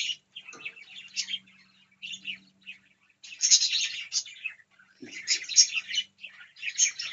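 Small pet birds chirping in rapid bursts of high, thin chirps, with short gaps between the bursts.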